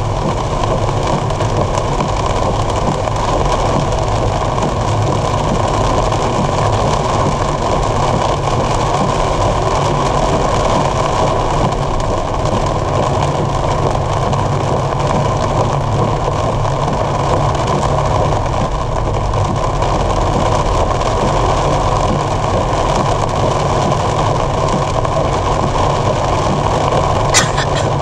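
Steady road and rain noise inside a car's cabin while driving through a heavy downpour: tyres on the soaked road and rain on the body and windshield. A single sharp click comes near the end.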